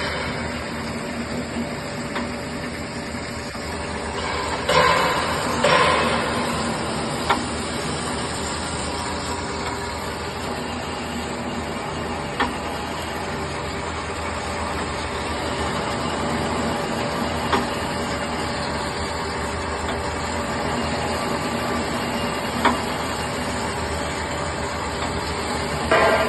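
Bandsaw machine running and cutting: a steady mechanical hum and hiss, with short sharp ticks about every five seconds and two louder bursts about five seconds in.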